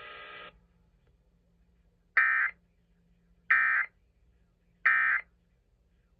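Three short bursts of SAME digital data tones from a NOAA Weather Radio broadcast, just over a second apart: the end-of-message code that closes an Emergency Alert System warning. A faint steady hum cuts off about half a second in.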